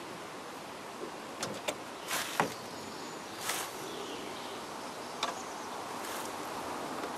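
A few light knocks and clicks from PVC pipe and fittings being handled and set down on a plastic table while a joint is glued, over a steady outdoor background hiss.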